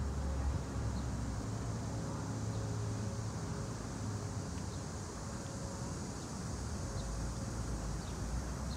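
Outdoor ambience: a steady low rumble with a light hiss over it and a few faint high ticks.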